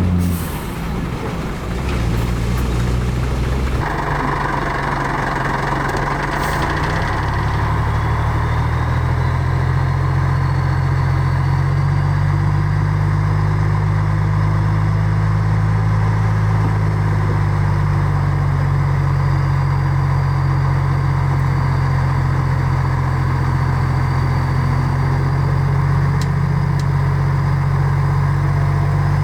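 Heavy diesel engine of earthmoving machinery running steadily with a low drone. About four seconds in, a harsher mechanical noise joins abruptly, and soon after the engine note rises a little.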